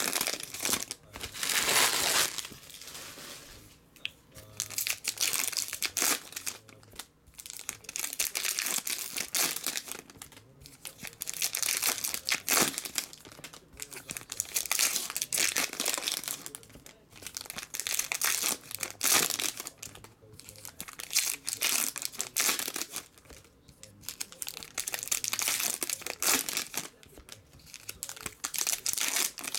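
Trading-card pack wrappers being torn open and handled, crinkling in repeated bursts every couple of seconds.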